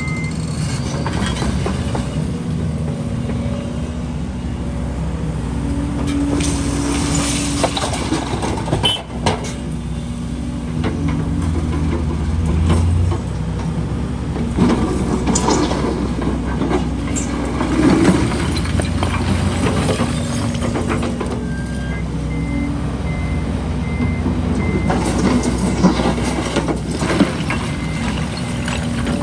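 Heavy diesel construction machinery, an excavator and dump trucks, running steadily, with knocks and scrapes of concrete rubble being moved. A short string of high beeps comes about three-quarters of the way through.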